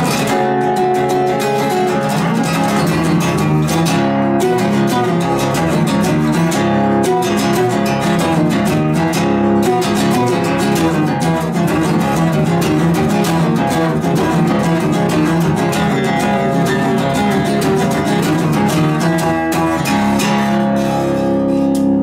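Solo acoustic guitar played fingerstyle, with fast picked notes mixed with rhythmic strums. Near the end the playing eases off into a few held notes ringing out as the piece closes.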